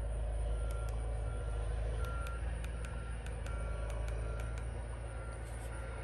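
Vehicle reversing beeper: short single-pitch beeps repeating evenly, a bit under two a second, over a low engine rumble.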